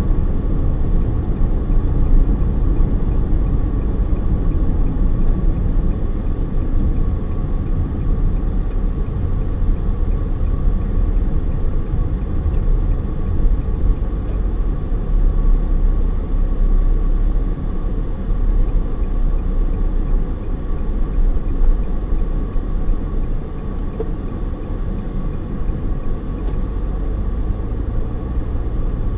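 Steady low rumble of a car's tyres and engine while driving, heard from inside the cabin.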